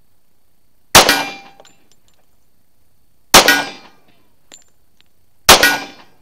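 Three shots from a Kimber Aegis Elite Pro .45 ACP 1911 pistol, about two seconds apart, each a sharp crack with a short ringing tail. A few faint ticks sound between the shots.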